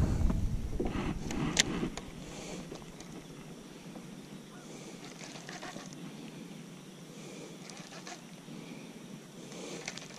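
Low rumble of wind and handling on a phone microphone during a cast, with a sharp click about one and a half seconds in. After that, faint open-air lake ambience with a few scattered light ticks.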